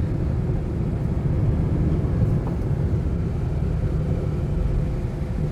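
Steady low rumble of a moving car heard from inside the cabin: engine and tyre noise of a Maruti Suzuki Swift Dzire driving along the road.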